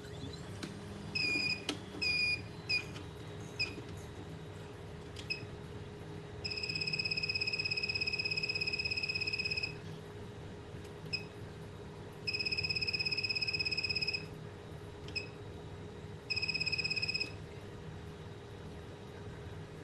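Electronic beeping from bench repair equipment: four short beeps, then three longer steady beeps lasting about three, two and one seconds. A steady hum from a running fan sits underneath.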